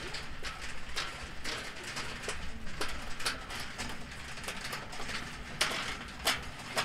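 A row of metal prayer wheels being spun by hand one after another, giving irregular clicks and knocks a few times a second as they turn, with a few louder knocks near the end.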